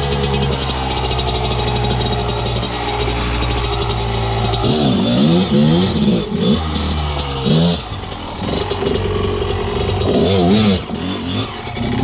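Enduro dirt bike engine running at a steady speed, then from about five seconds in revved up and down again and again in short blips of throttle, with more revving near the end.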